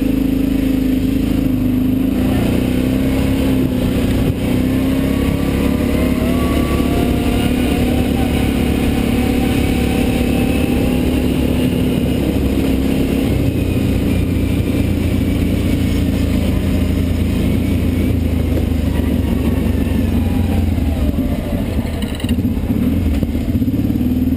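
ATV engine running steadily while riding a dirt trail, its pitch rising and falling a little with the throttle, over a constant low rumble.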